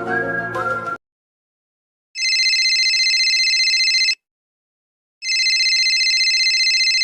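A telephone ringing twice, each ring a fast trill lasting about two seconds, a second apart. A short music melody ends about a second in, before the rings.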